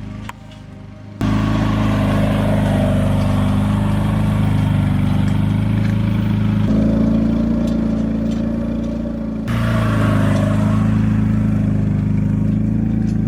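An engine running steadily, heard across several spliced shots. Its tone changes abruptly at each cut, about a second in, near the middle and again about three seconds later.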